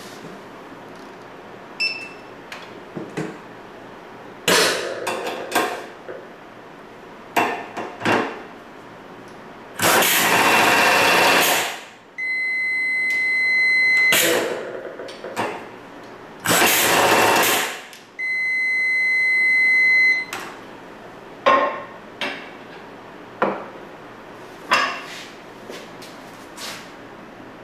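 Pneumatic oil-pulse tool running twice, about two seconds each, as it tightens a bolt on a test joint. Each run is followed at once by a steady two-second electronic beep, which signals that the tightening has finished at the target torque. Short bursts of air and handling noise come before and after.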